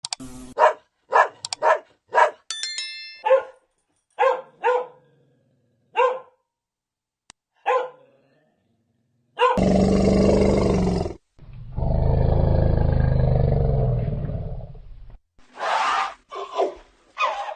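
Animal calls: a run of short, sharp, bark-like calls, then two long, rough, roaring calls of about one and a half and three seconds, and a quick cluster of short calls near the end.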